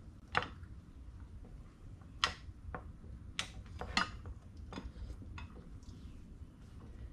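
Irregular metallic clicks and clanks, about eight in all with the loudest near the start, in the middle and about four seconds in, as the scooter's front wheel, spacer and axle parts are shifted and knocked together while being lined up in the fork.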